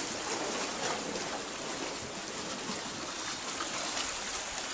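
Shallow seawater running and trickling steadily through a narrow rock gully.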